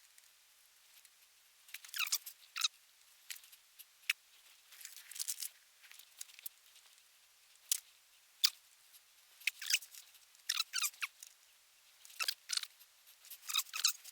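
Small scratchy clicks and scrapes in irregular clusters, starting about two seconds in: a soldering iron tip and hand tools working on a circuit board while resistors are desoldered.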